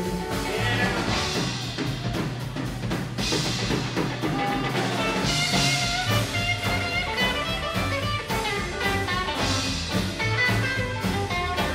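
A rockabilly band playing an instrumental break, with acoustic guitar strummed over a steady drum-kit beat and a bass line, and no singing.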